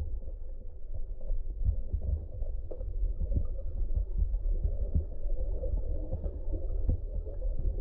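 Muffled underwater sound picked up by a submerged camera: a steady low rumble of moving water with irregular soft thumps and knocks.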